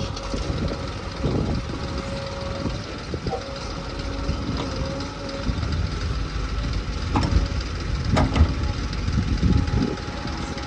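Diesel engine of a JCB 3DX backhoe loader running steadily while it digs, with a held whine and a couple of sharp clanks about two-thirds of the way through.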